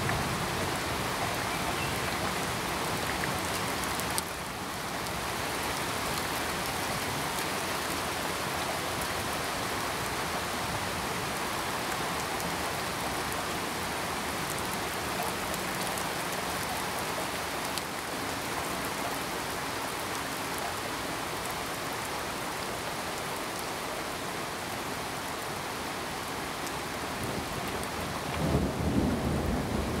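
Steady rain falling, an even hiss of drops, with a low rumble of thunder swelling in near the end.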